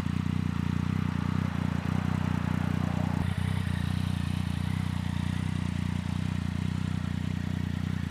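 Yamaha MT-09's three-cylinder engine idling steadily through an Akrapovič aftermarket exhaust.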